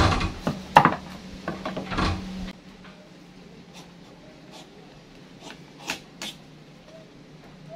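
Kitchen knife cutting into a wax gourd on a wooden cutting board: several sharp knocks in the first two seconds or so, then faint scattered scrapes and ticks as the knife shaves the gourd's skin.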